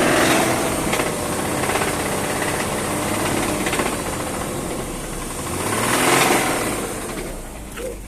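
BMW M54 straight-six engine being revved twice, its pitch rising and falling each time, with the knock the engine has developed.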